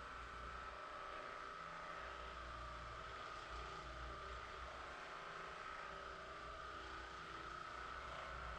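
Percussive massage gun running steadily: a motor whine holding one pitch over a low buzz.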